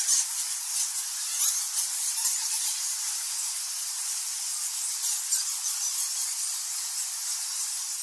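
Many bats squeaking at once: a dense, unbroken chorus of high squeaks and chatter over a hiss.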